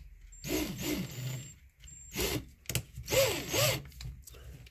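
Hand tools being handled during a drill-bit change: several short bursts of rubbing and rattling.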